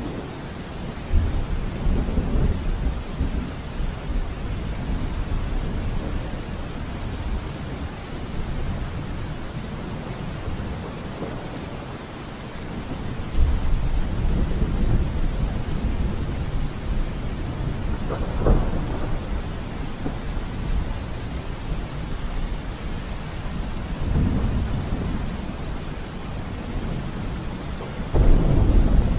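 Steady rain falling, with low rolls of thunder swelling and fading several times, the strongest about a second in, near the middle and near the end.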